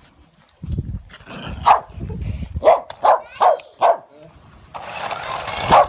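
Dog barking, about six sharp barks, four of them in quick succession in the middle, with a rushing noise under the last bark.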